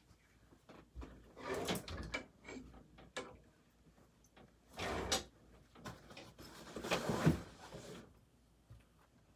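A drawer being slid open and shut with things handled inside it: a string of short scrapes, knocks and rustles, in several separate bursts over the seconds.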